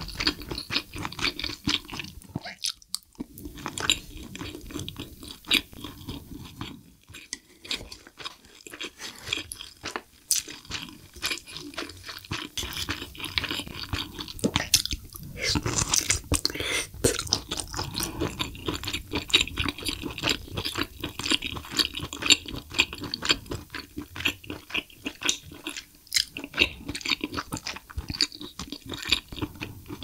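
Close-miked chewing and biting of spicy braised abalone and rice: a dense run of quick wet clicks and smacks, loudest about halfway through.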